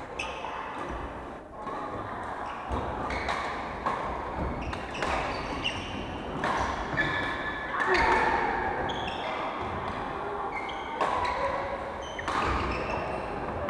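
Badminton play: sharp racket strikes on the shuttlecock, scattered throughout, and short high sneaker squeaks on the wooden court floor, echoing in a large hall.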